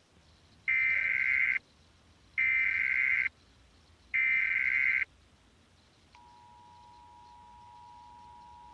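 Emergency Alert System header: three short bursts of shrill digital data tones, each just under a second and about a second and a half apart. About six seconds in, the steady two-tone EAS attention signal begins, quieter than the bursts.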